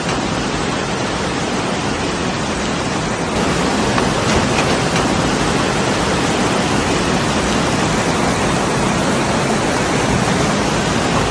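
Muddy floodwater rushing past in a fast torrent: a loud, steady, unbroken rush of churning water, a little louder after about four seconds.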